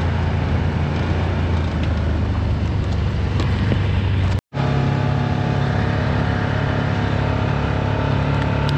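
Can-Am Commander side-by-side's engine running steadily while driving along the trail. About halfway through there is a brief dead break, and after it the engine note sits higher.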